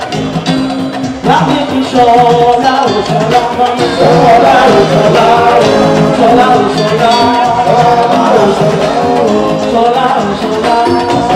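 Loud music with a singing voice. The voice comes in strongly after the first second or so, over sustained bass notes.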